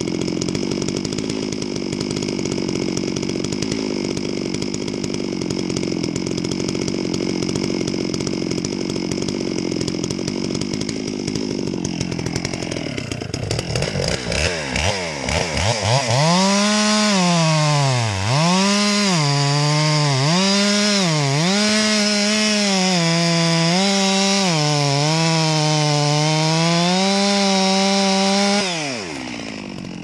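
Two-stroke chainsaw running at high revs, sawing into a dead standing tree. From about halfway the engine note dips and recovers again and again, about once a second, as the chain bites and frees in the cut. The high note ends abruptly near the end.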